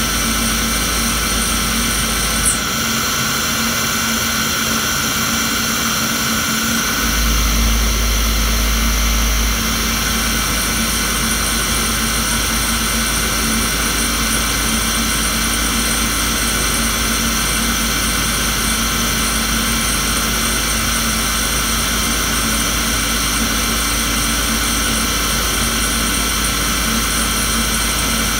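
QTN-350-IIMY CNC lathe with Y-axis running through a machining cycle: a steady machine hum with several high whining tones from the spindle and axis drives. There is a sharp click about two and a half seconds in, and the sound swells briefly a few seconds later.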